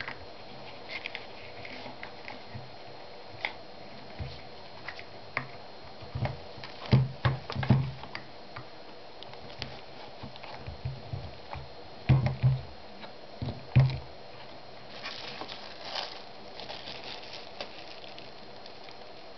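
Handling noises from working on a front disc brake caliper: a rubber guide-pin boot being worked onto the caliper, with scattered clicks and two clusters of louder knocks as the caliper is moved about on the bench. Near the end comes the crinkling of a plastic bag.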